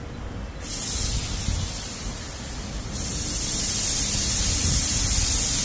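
Touchless car wash machine spraying water at high pressure: a steady hiss that starts about half a second in and grows louder about three seconds in.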